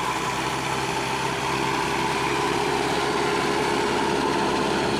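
Diesel engine of a Mahindra EarthMaster SX90 backhoe loader running steadily, getting a little louder about a second and a half in.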